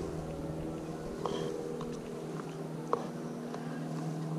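Steady low mechanical hum like a distant motor, with a few light clicks, the sharpest about one second and three seconds in.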